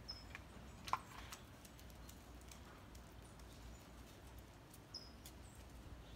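Faint, light ticking of a dog's claws on a concrete patio, with a sharper click about a second in. Two short high chirps, one at the start and one about five seconds in.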